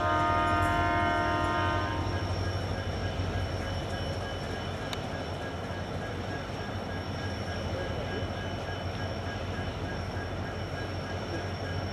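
Train horn sounding one blast of about two seconds, then the steady rumble of the moving train.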